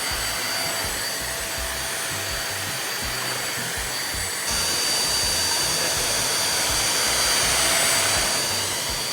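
Albatros Cyclone 800 W stick vacuum cleaner running, a steady rushing motor noise with a thin high whine. It gets louder about halfway through and eases back near the end.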